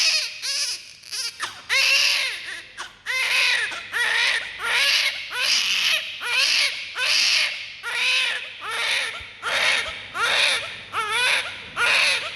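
Newborn baby crying in short, rhythmic cries, about two a second, each rising and then falling in pitch.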